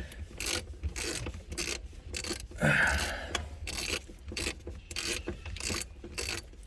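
Irregular clicks and scraping of hand work on a car's interior parts, with a louder rasping scrape about three seconds in.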